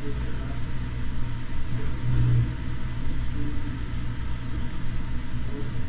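Steady low rumble and hum of room noise, swelling briefly about two seconds in.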